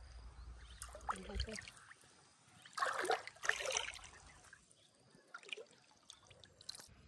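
Water sloshing and trickling as hands grope along the bottom of a shallow pond for snails. The loudest splashing comes in two bursts about three seconds in, with fainter sloshes before and after.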